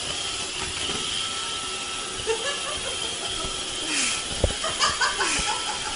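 Robot vacuum cleaner running, a steady whirring hiss with a faint high whine, while a cat rides on top of it. A low thump comes about four and a half seconds in, among a few clicks near the end.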